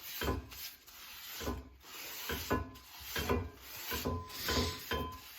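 Oil being spread over the bottom of a hot griddle pan: repeated back-and-forth rubbing strokes against the pan's surface.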